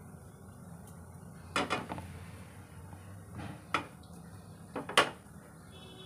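Frying pan knocking and clattering against the gas stove's grate as it is moved and set down: a few sharp knocks in three groups, the loudest about five seconds in, over a low steady hum.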